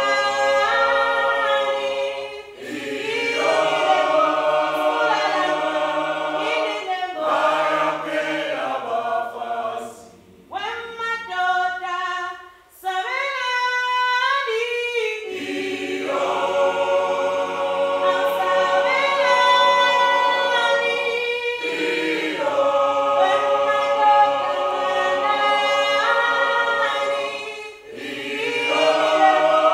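Choir of voices singing unaccompanied in harmony. About ten seconds in, the sound thins to fewer voices for a few seconds, then the full choir returns.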